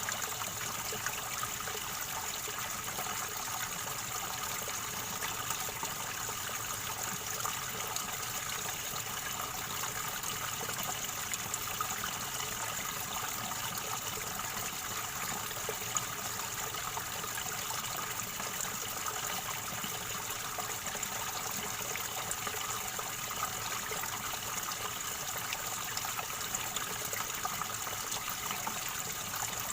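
River water gurgling and splashing steadily over its bed, an even rushing that does not let up.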